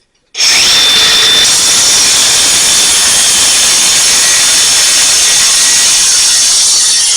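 A power tool starts abruptly just after the start and runs steadily at full speed, loud and hissy with a lot of high-pitched grinding noise.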